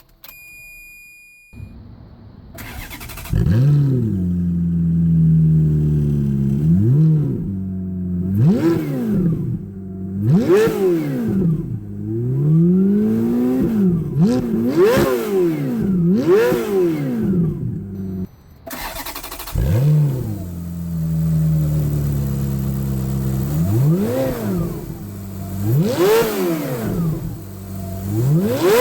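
Ferrari F430's V8 engine started: a brief electronic tone, then the engine catches and settles into a steady idle, followed by a series of quick throttle blips, each rev rising sharply and falling back to idle.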